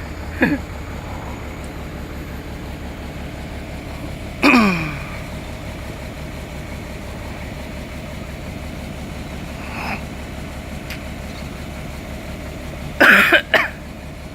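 Excavator's diesel engine idling steadily. Over it come four loud, short sounds that slide sharply down in pitch: one right at the start, one about four and a half seconds in, and a close pair near the end.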